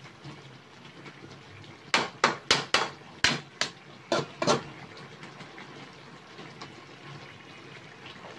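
Metal ladle clanking and scraping against a metal wok as a coconut-milk pork stew is stirred: a quick run of about nine knocks between two and five seconds in, with quieter stirring around them.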